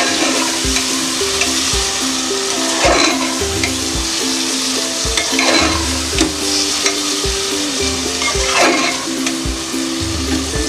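Metal spoon stirring and scraping a curry masala of fried potatoes, peas and mushrooms around an aluminium pressure cooker, the oil sizzling steadily, with a louder scrape every few seconds. Soft background music with a steady beat plays underneath.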